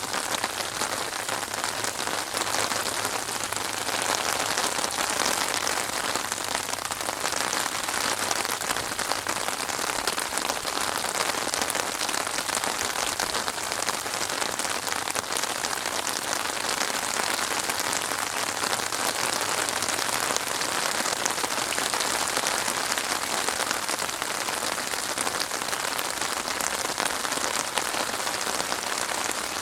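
Steady, even rainfall: a dense continuous patter of raindrops.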